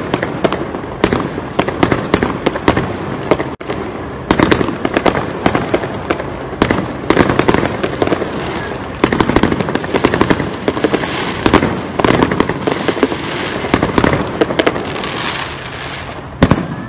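Fireworks display: a rapid, continuous string of bangs and crackling from aerial shells bursting, with a brief break about three and a half seconds in.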